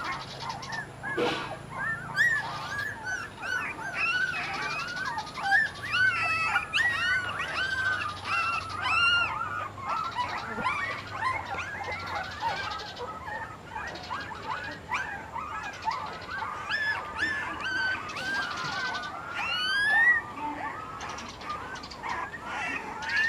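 A litter of young puppies whimpering and squealing, with many short high-pitched cries overlapping without a break.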